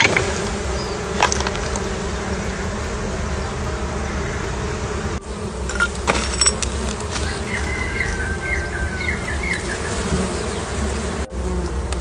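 A swarm of honey bees buzzing steadily around an exposed wild honeycomb that is being cut away. A few sharp clicks sound over the hum.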